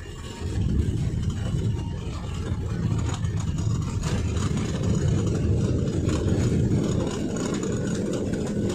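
Airbus airliner's landing rollout just after touchdown, heard from inside the cockpit: a loud, steady low rumble of the engines and the wheels on the runway that swells about half a second in.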